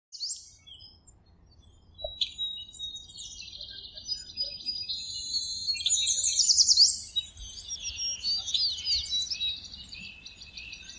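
Birdsong: many small birds chirping and twittering at once, with quick rising and falling whistled notes. It is sparse at first and busiest about six to seven seconds in.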